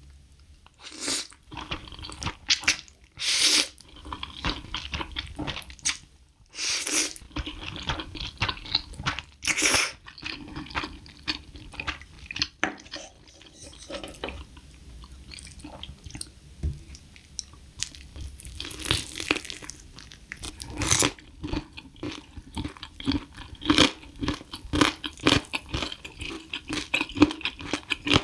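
A person eating saucy spicy stir-fried instant noodles close to the microphone: several long, loud slurps in the first ten seconds and a couple more later, with wet chewing between them.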